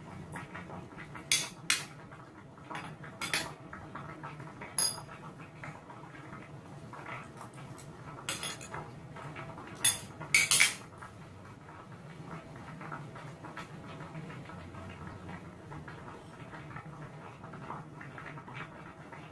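Metal spoon and fork clinking and scraping against a ceramic bowl while eating, as scattered sharp clinks. The loudest run comes about ten seconds in.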